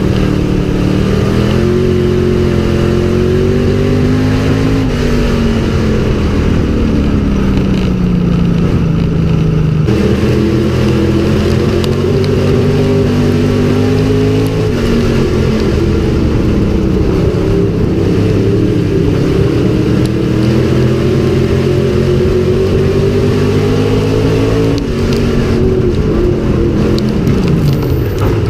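Dirt-track stock car's V8 engine, heard from inside the cockpit under racing load. It rises and falls in pitch as the car repeatedly accelerates and lifts off, with sharp drops about fifteen seconds in and again near the end.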